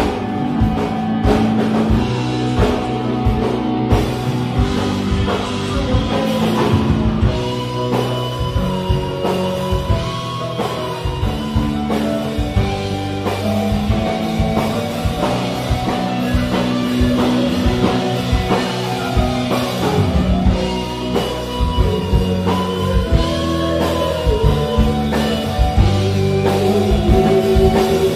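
Live rock band playing: a drum kit keeping a steady beat under electric guitar and keyboards, with sustained, wavering guitar notes.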